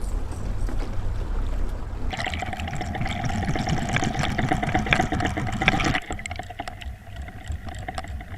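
Water rushing and splashing around a boat that is trolling under a running motor. A steady hum with many small ticks comes in sharply about two seconds in and drops away sharply about six seconds in.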